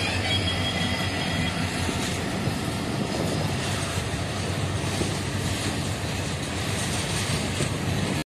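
Open steel freight wagons rolling past at close range, wheels clattering over the rail joints. The low hum of the EMD WDG4 diesel locomotives that have just gone by fades away within the first second.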